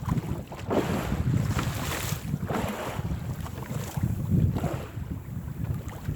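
Wind buffeting the microphone with a choppy rumble, over water splashing and sloshing against a small fishing boat, with a few louder hissing surges.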